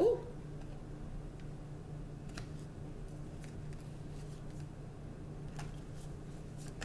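Tarot cards being shuffled by hand: a few faint, scattered card snaps and taps over a steady low hum.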